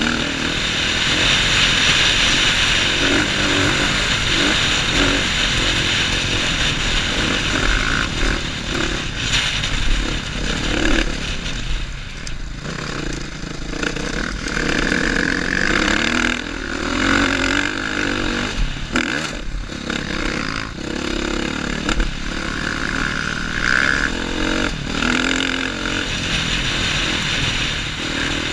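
2015 KTM 450 XC-F dirt bike's four-stroke single-cylinder engine running under load on a trail ride, its pitch rising and falling with the throttle, along with wind and rattling from the ride over rough ground.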